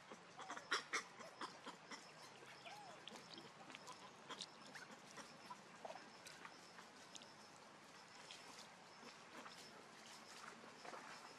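Faint monkey calls: a few short calls that rise and fall in pitch, with scattered light clicks and ticks throughout.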